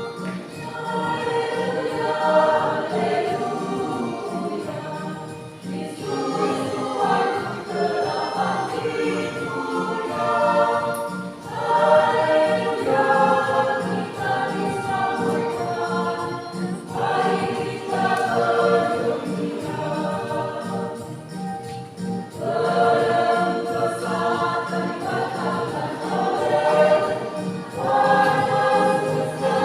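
Church choir singing a hymn in several voices, in phrases of a few seconds each, over an accompaniment keeping a steady beat.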